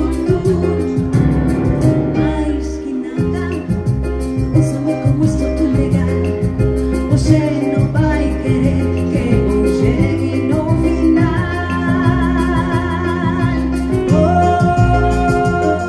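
Live bossa nova performance: a woman singing over keyboard accompaniment with a steady, pulsing bass line, holding long wavering notes near the end.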